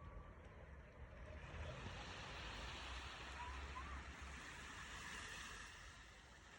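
Small sea wave washing up the beach, its hiss swelling about a second in and fading near the end, over a low rumble of wind on the microphone.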